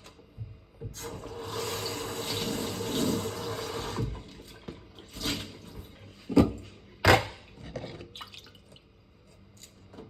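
Water tap running into a sink for about three seconds, then stopping, followed by a few separate knocks.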